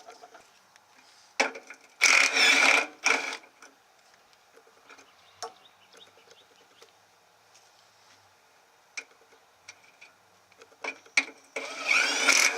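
A wiring harness being pulled out of a pickup truck: rough scraping and rustling of the plastic loom dragged against the body, in two bursts about two seconds in and near the end, with a few sharp clicks between.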